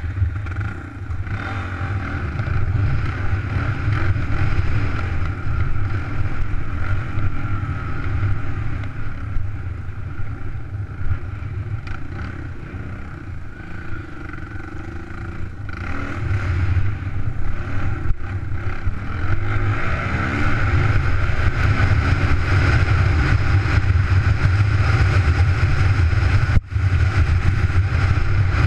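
Suzuki DR200's single-cylinder four-stroke engine running as the dirt bike rides along a trail. The engine eases off and goes quieter partway through, then runs louder and harder toward the end.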